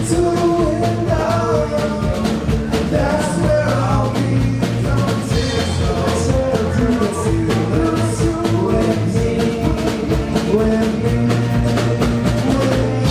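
Live rock band playing loud and fast, with rapid drum-kit hits over sustained bass notes.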